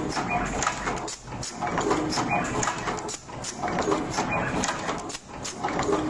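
Automatic heat shrink tube inserting, twisting, tinning and crimping machine running, its mechanisms clicking and clacking in a repeating work cycle of about two seconds.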